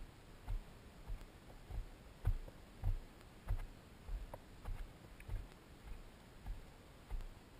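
A hiker's footsteps on a rocky dirt trail: a steady walking pace of dull, low thuds a little under twice a second, with small clicks and scrapes of grit underfoot.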